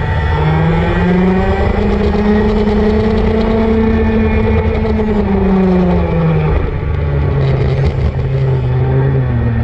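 Racing go-kart engine at speed, its pitch climbing over the first couple of seconds, holding, then dropping off as the kart slows for a corner, and rising again near the end as it accelerates out.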